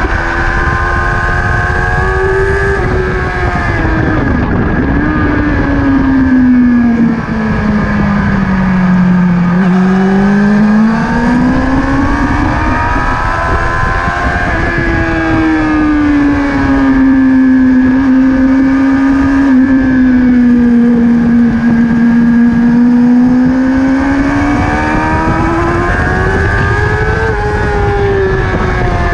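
Motorcycle engine running hard on a circuit lap, heard from a camera on the bike: the engine note sinks slowly over several seconds as the rider rolls off for a slow corner, climbs again on the throttle, drops abruptly about halfway through as the rider shifts, then holds fairly steady before rising and falling again near the end.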